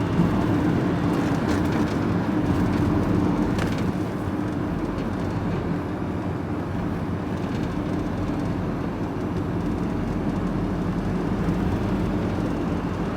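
Engine and road noise of a moving vehicle heard from inside the cab: a steady low drone with a hum that eases slightly a few seconds in.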